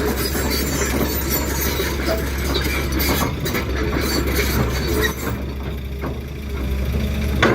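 Heavy machinery engine running steadily, with stone scraping and clinking over it that thins out after about five seconds.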